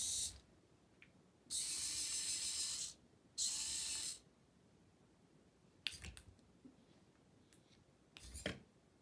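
Small geared DC wheel motors (GeekServo) of a LEGO Technic robot car whirring in three short bursts as the car drives and turns. Later come a few sharp clicks and a brief rattle.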